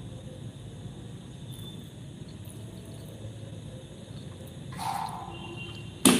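Low steady background hiss, with a short rustle about five seconds in and a single sharp knock at the very end, the loudest sound: handling noise of a person eating by hand at a table.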